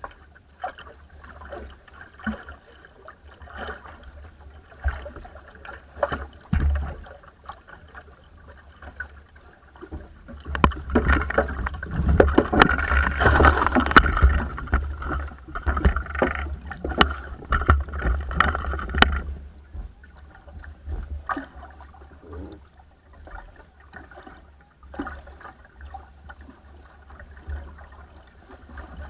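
Water rushing and splashing along the bow of a small wooden sailing dinghy moving at speed, over a steady low rumble of wind on the microphone. The rush of spray grows much louder for several seconds in the middle, then drops back.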